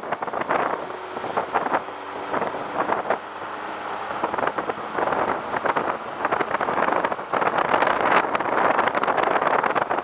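Wind rushing over the microphone on a Suzuki Bandit 1250 motorcycle at road speed. When the wind eases for a few seconds near the start, the engine's steady note shows through. The wind grows louder again in the second half.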